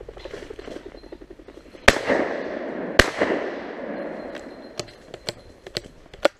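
Two shotgun shots a little over a second apart, each with a long fading echo, over a dense rustling. A few lighter clicks follow near the end.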